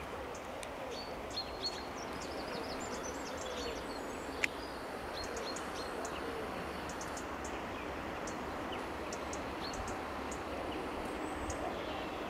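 Mountain river water flowing steadily, with small birds chirping over it and one sharp click about four and a half seconds in.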